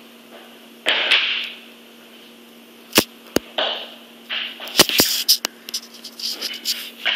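Several sharp snaps with short hissing or scraping strokes between them, over a steady low hum: a chalk line being stretched and snapped onto a concrete floor to mark layout lines.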